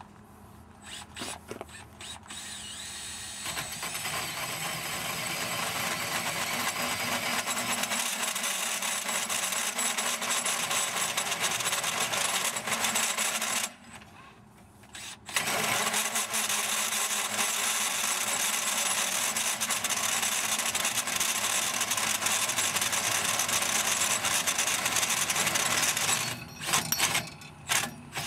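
Cordless drill turning a 2¾-inch hole saw in a tube notcher, cutting a notch into a 1.5-inch metal tube. The cut builds up over the first few seconds, stops briefly about halfway, runs on steadily, and ends in a few short starts and stops near the end.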